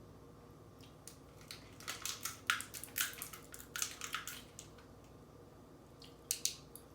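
Adhesive tape being picked at and pulled off taped-up hands. Short crackling rips come in a run from about a second in to halfway through, then two more near the end.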